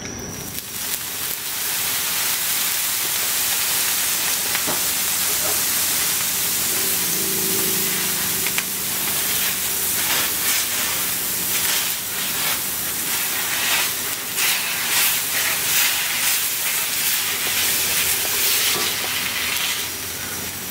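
Water sizzling and hissing as it boils off the hot steel top of a Blackstone griddle, starting about a second in, while a paper towel held in tongs is swished through it. This is the water-rinse step of cleaning a hot griddle, used to lift off leftover oil and food.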